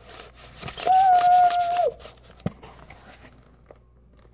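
A woman's drawn-out 'ahh' of mock disgust, held on one pitch for about a second, over clicks and rustling from handling a cardboard novelty book with moving parts. A single soft knock comes about two and a half seconds in.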